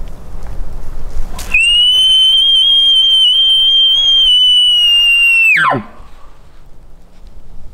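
A hunter's elk bugle call blown through a camouflaged bugle tube, imitating a bull elk's bugle to call in a bull that had answered earlier: a loud high whistle held for about four seconds, then a steep fall in pitch to a low note.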